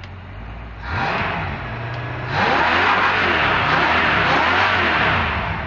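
Freshly overhauled OMC stringer inboard engine being given gas. A short rise in revs comes about a second in, then it is held at higher revs from about two seconds in and eases back down near the end. The owner hears a slight lifter tick in it.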